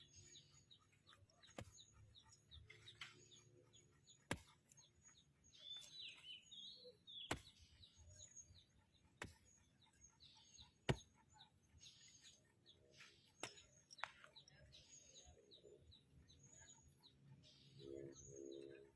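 Faint birdsong: small birds chirping in short, scattered calls, with a few sharp clicks in between.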